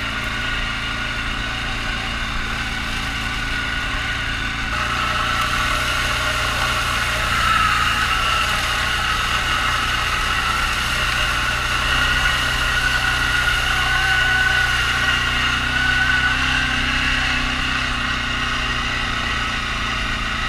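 Off-road vehicle engine running at a fairly steady speed, its pitch drifting gently up and down, a little louder from about five seconds in.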